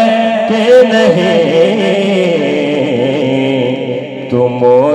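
Male voice singing a naat into a microphone, drawing out a long wordless melismatic phrase that bends up and down in pitch; the voice drops away briefly about four seconds in before picking up again.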